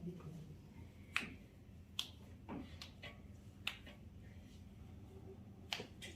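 A few faint, sharp clicks at irregular intervals, about six in all, the loudest about a second in.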